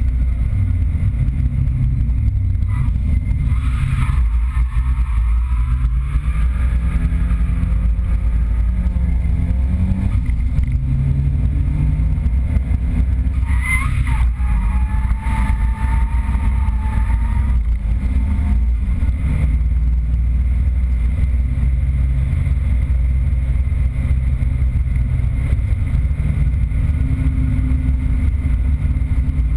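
Nissan 200SX drift car's engine heard from inside the cabin, its revs climbing and dropping again and again as the driver works the throttle and gears through drifts.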